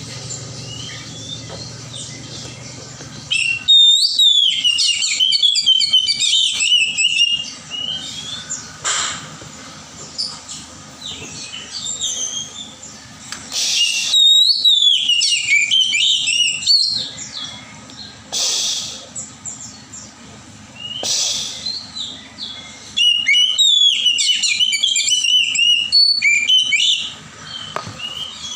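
Oriental magpie-robin singing: three loud bouts of a few seconds each, made of fast, varied whistled phrases, with softer short notes between them.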